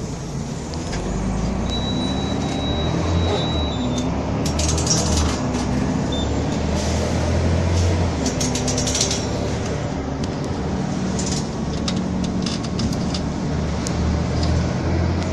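Volvo B12M bus's diesel engine running under way, its pitch rising and falling as the revs change, with many short clicks and rattles over it. A brief thin high tone sounds about two seconds in.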